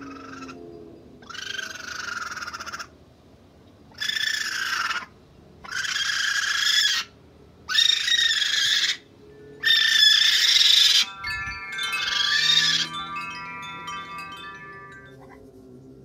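Raccoon kits chirping: six loud, wavering trills of about a second each, separated by short pauses. Near the last trills, several steady chime-like ringing tones start with a sharp strike and slowly fade out.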